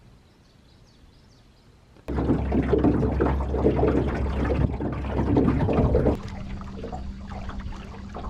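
Water rushing and splashing around a moving boat with a steady motor hum, starting suddenly about two seconds in and dropping to a quieter rush with a steadier hum about four seconds later.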